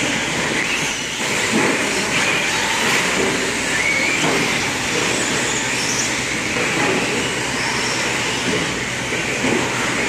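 Several radio-controlled stadium trucks racing round a dirt track: a steady wash of motor and tyre noise, with thin motor whines rising and falling as trucks pass.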